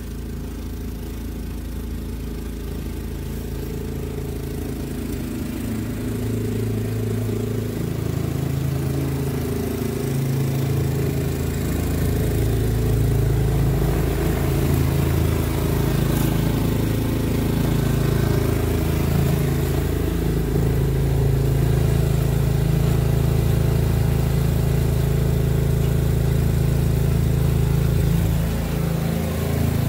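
Toro SnowMaster 824 QXE snowblower's single-cylinder engine running steadily under load while it clears and throws snow. It grows louder over the first dozen seconds as the machine comes closer, then holds steady.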